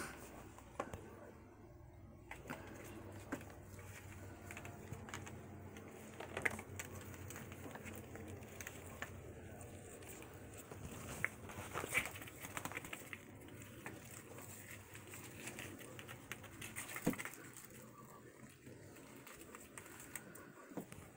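Kittens playing with a dangling headband toy on a carpeted scratching post: soft scattered taps and rustles, with a few sharper knocks spread through.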